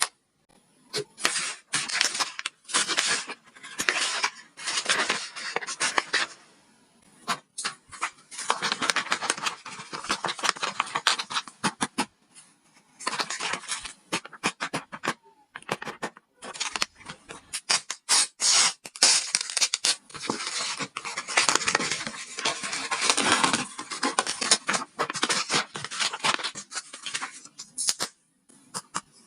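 Paper being handled for a paper craft: rustling, crinkling and scraping in short, irregular bursts with small clicks and brief pauses between.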